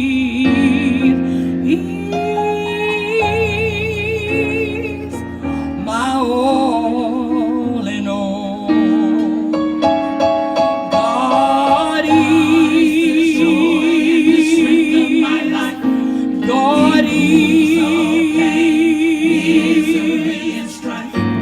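Gospel choir singing long held notes with strong vibrato, over keyboard accompaniment.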